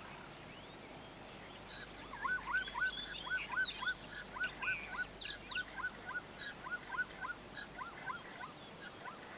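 A rapid run of short, hooked chirping calls, about three a second, with higher twittering chirps over them, starting about two seconds in and tailing off near the end.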